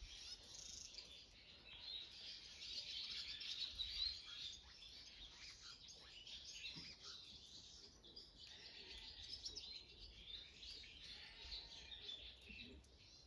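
Small birds chirping and twittering in a faint, continuous chorus of short, high calls, busiest in the first half.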